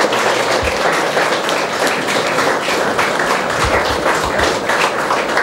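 Audience applauding: a dense, even clatter of many hands clapping.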